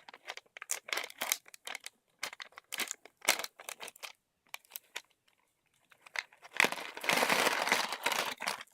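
Snack packaging crinkling as it is handled and opened, in a string of short rustles, then a longer continuous rustle about two thirds of the way in.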